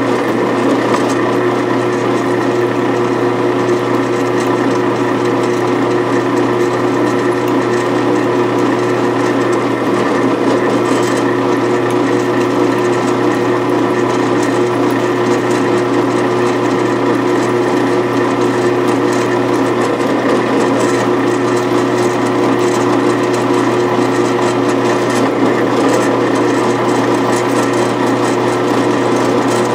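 Drill press running steadily as its twist drill bores a bolt hole into a metal cylinder-head block, the motor's hum under the grinding of the bit cutting metal.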